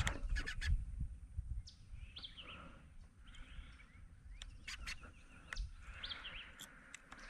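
Birds calling in short chirps, several times, with a few knocks and clicks and a low rumble in the first second.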